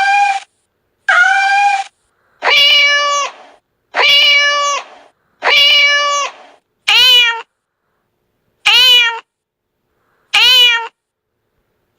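Domestic cat meowing, a string of separate meows: a short one, then three longer, lower meows, then three brief meows that rise and fall in pitch.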